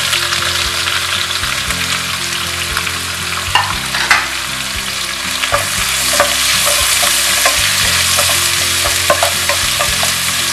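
Sliced onions sizzling in hot oil and ghee in a non-stick kadai, stirred with a wooden spatula that now and then knocks and scrapes against the pan.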